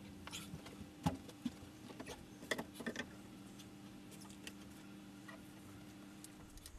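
A scatter of light clicks and knocks from things being handled, the loudest about a second in, dying away after about three seconds, over a steady low hum.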